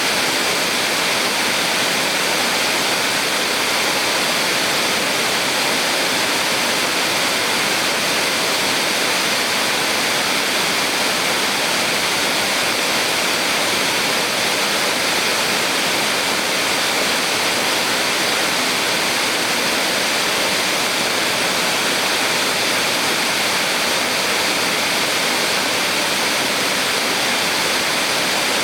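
Small waterfall on a mountain stream: water falling and rushing in a steady, unbroken hiss, loudest in the middle and upper range.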